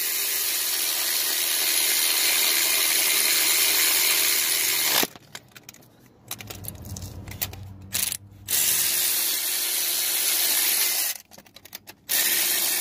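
Cordless electric ratchet running head bolts down on a 5.3 V8 cylinder head, its motor running steadily. It stops twice: for about three seconds starting about five seconds in, with a short burst in the middle, and for about a second near the end, with small clicks in the gaps.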